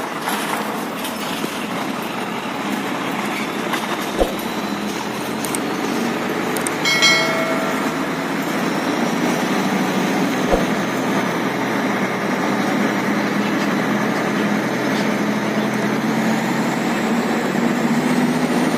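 Turbocharged Nissan UD diesel truck engine running under way, heard from the cab with the window open, with a high turbo whistle rising toward the end. A short high-pitched tone sounds once about seven seconds in.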